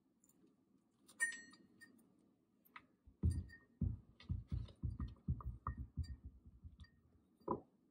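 Squash seeds and stringy pulp being pulled out by hand and dropped into a stainless steel bowl: a single ringing clink of the bowl about a second in, then a quick run of soft low knocks, about three a second, and one more knock near the end.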